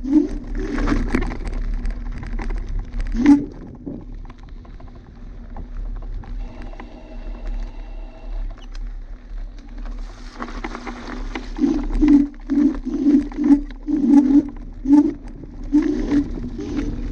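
Dualtron Thunder electric scooter ridden over a rough dirt track: wind on the microphone with irregular thumps and rattles from the bumps, quieter through the middle and busier again near the end.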